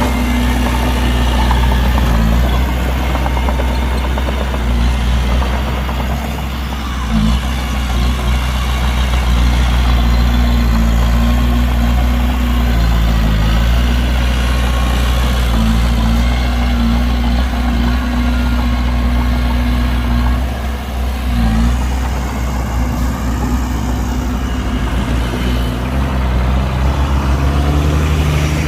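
Heavy diesel engine of construction machinery running steadily at low revs, a deep even drone that wavers briefly twice.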